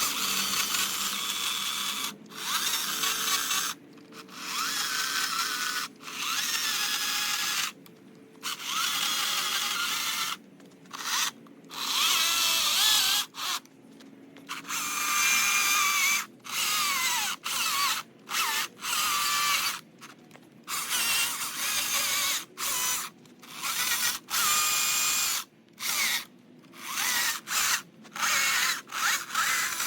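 A high-pitched power tool working into red cedar in repeated bursts of one to three seconds with short pauses between them, its pitch wavering as it bites and eases off.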